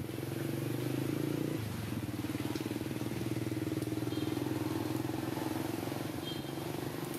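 A small engine running at a steady idle with an even hum, its pitch settling slightly lower about a second and a half in. Two brief high chirps sound over it, a little past halfway and near the end.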